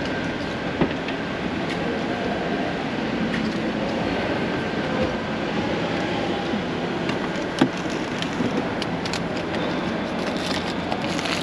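Steady rumble and hiss of a moving vehicle heard from inside, with two sharp clicks, one about a second in and one near eight seconds.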